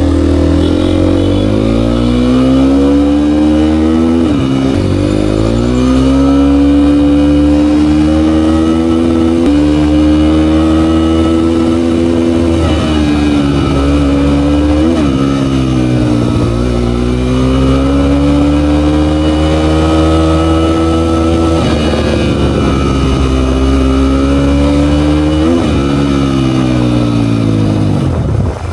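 Dirt bike engine under way, its revs climbing and falling back again and again as the rider rides on.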